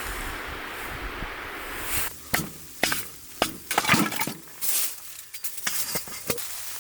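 A steady hiss, then from about two seconds in a run of sharp clinks and knocks from camp cookware and utensils being handled.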